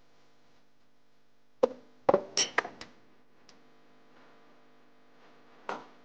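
Glass bowls and dishes knocking and clinking as they are cleared away and set down: a quick cluster of sharp knocks with a brief ring about two seconds in, and one more knock near the end.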